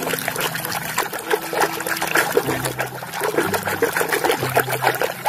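Water trickling and splashing over a muddy toy vehicle as it is washed clean, with many small irregular splashes.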